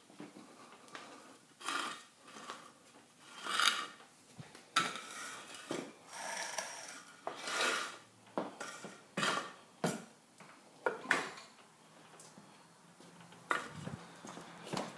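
A series of irregular knocks and clattering handling sounds, about a dozen, unevenly spaced. A faint low hum comes in near the end.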